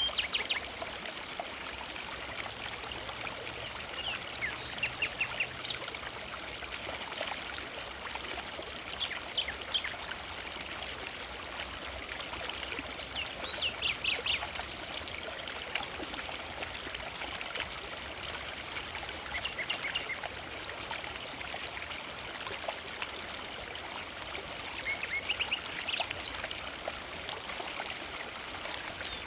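A forest river flowing steadily, with birds chirping now and then over the water, short calls every few seconds.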